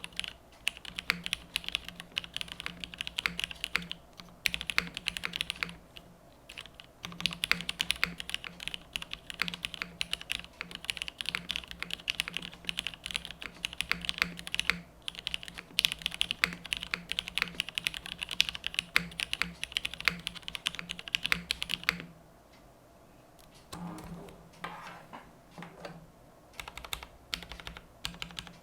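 Continuous fast typing on a custom mechanical keyboard with Cherry MX Vintage Black linear switches in an aluminium plate, top mount, with GMK keycaps: dense key clacks. The typing stops briefly about three quarters of the way through, then resumes.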